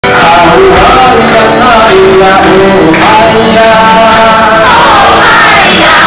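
A man singing live into a microphone while strumming a steel-string acoustic guitar, loud throughout.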